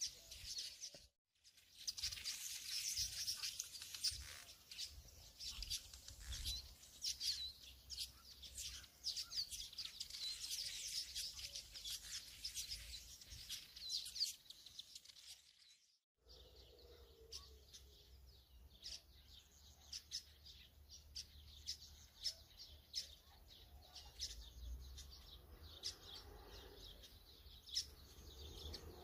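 Small birds chirping and twittering in quick, dense calls, with two brief breaks in the sound, about a second in and about sixteen seconds in; the calls are sparser after the second break.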